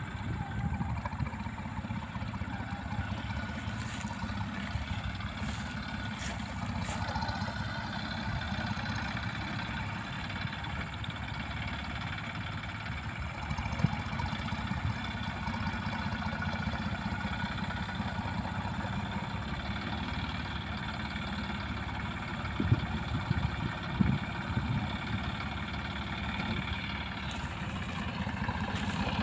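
Massey Ferguson 9500 Smart 58 hp diesel tractor engine running steadily under load while pulling a plough through the field, with a few short sharp knocks partway through. It grows louder near the end as the tractor comes closer.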